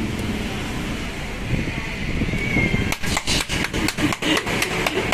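Rapid hand claps, about five a second, starting about three seconds in.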